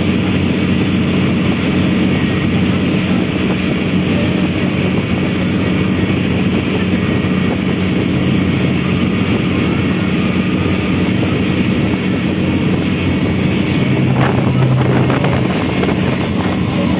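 Outrigger boat's engine running steadily at cruising speed, a constant low drone, with water rushing and splashing against the hull and outrigger float.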